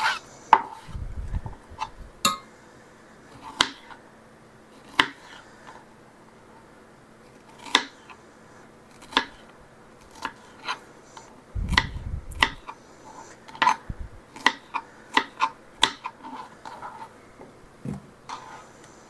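Kitchen knife slicing strawberries on a plastic cutting board: irregular sharp taps of the blade against the board, roughly one every second, with a few dull bumps.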